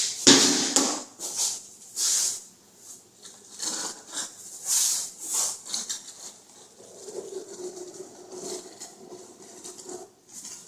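Irregular scraping and swishing strokes of a tool working wet self-leveling floor compound, busiest in the first few seconds and thinning out later.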